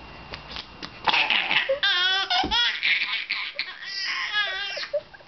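Baby laughing hard in repeated high, wavering bursts that begin about a second in.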